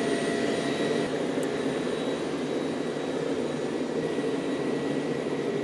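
Steady jet-turbine noise, a continuous rush with a thin high whine held on one pitch.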